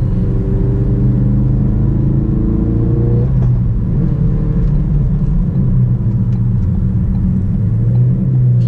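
Ford Focus RS MK3's turbocharged 2.3-litre four-cylinder heard from inside the cabin while driving. The engine note rises slowly for about three seconds, then breaks off and settles to a steady cruise with road rumble.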